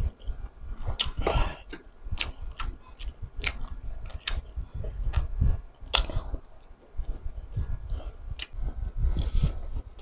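Close-miked chewing of mouthfuls of spicy pork sisig and crispy fried pork, wet smacking broken by many sharp crunching clicks at irregular intervals.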